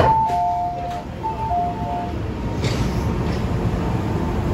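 MTR M-train's electronic door chime, a two-note ding-dong repeated, sounding as the saloon doors open at the platform, starting with a sharp click. A short hiss follows about two and a half seconds in, over steady station and train noise.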